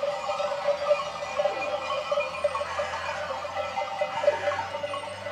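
Many bells ringing at once, a dense jangle of overlapping tones.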